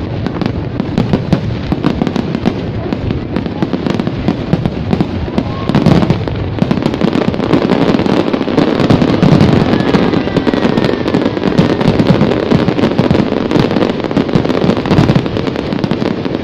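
Aerial fireworks display: a dense, continuous barrage of bangs and crackling over a low rumble, heaviest in the second half.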